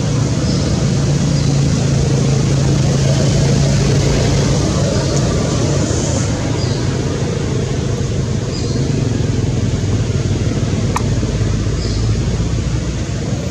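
Steady low drone of a motor engine running throughout, with a few short faint high chirps over it.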